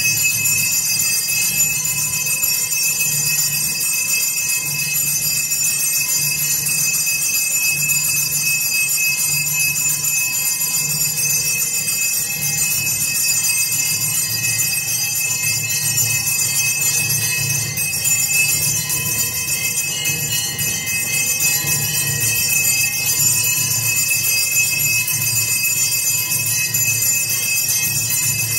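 Temple bells ringing without pause during an aarti, a dense metallic ringing over a low pulsing drone that runs on unchanged.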